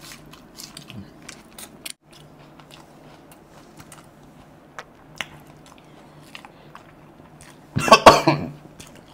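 Close-up eating sounds of chicken liver curry being eaten by hand: scattered small wet clicks of chewing and lip-smacking over a faint steady hum. Near the end comes one loud, short, breathy burst, much louder than the chewing.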